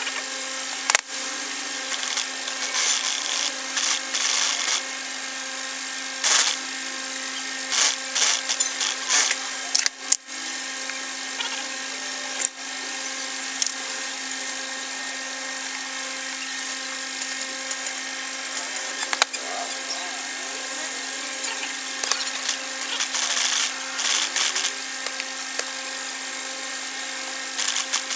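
Electric sewing machine running in short bursts of stitching over a steady hum.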